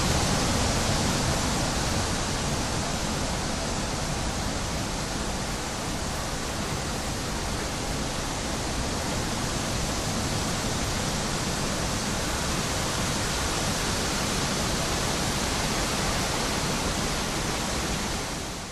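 Wind sound effect: a steady, even rushing of wind with no distinct gusts, fading out at the very end.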